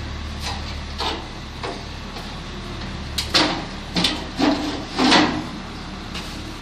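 Front casing of a tankless gas water heater being fitted back over the unit: a handful of short clacks and knocks as the panel is slid on and pressed into place, the loudest and closest together about three to five seconds in.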